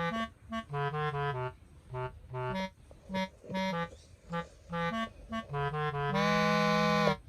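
Background music: a bouncy melody of short, separate notes, then a held chord about six seconds in.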